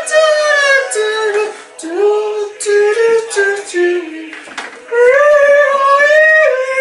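A man singing loudly in a high falsetto without clear words, long held notes sliding up and down. The voice drops lower and quieter in the middle, then rises to loud held notes again about five seconds in.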